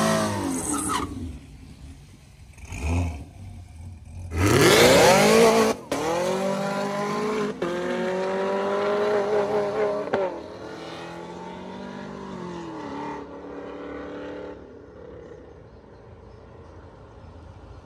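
Drag-racing cars accelerating hard down the strip. Engine pitch climbs and drops back as they shift and pull away, then fades. The loudest pass comes about four and a half seconds in.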